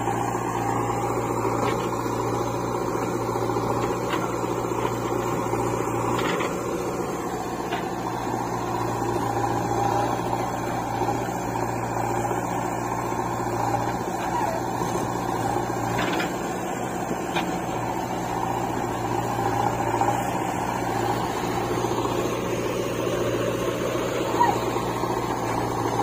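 Diesel engines of a JCB 3DX backhoe loader and a Mahindra 475 DI tractor running steadily while the backhoe loads soil, giving an even drone with a few faint knocks.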